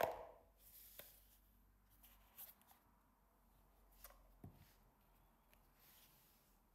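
Near silence, with a few faint taps and knocks as a cardboard perfume box is handled and lifted off its glass bottle. The loudest of them is a brief handling sound at the very start.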